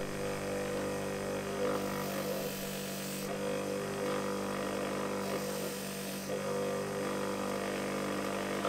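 Motor-driven wire wheel running steadily, its motor humming, while the wire brush scrubs rust off a steel chisel blade, the scratching hiss coming and going as the blade is pressed on and eased off.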